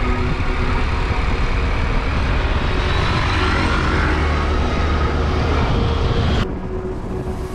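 Wind rushing and buffeting over the microphone of a camera on a moving scooter, with road and engine noise under it. About six and a half seconds in it drops to a quieter, steadier hum.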